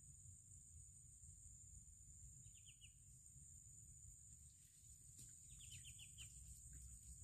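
Near silence outdoors with faint bird chirps: two short runs of quick chirps, one about two and a half seconds in and a longer one near six seconds, over a steady high-pitched hum and low rumble.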